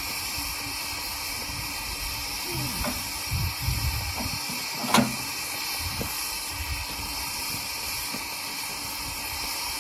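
Small 15-inch gauge steam locomotive hissing steadily as steam blows off from the top of the engine, with low rumbling as it is pushed round on a turntable. A single sharp knock comes about five seconds in.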